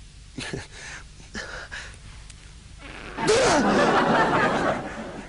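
A burst of laughter lasting about a second and a half, starting just past halfway, after a few faint short vocal sounds.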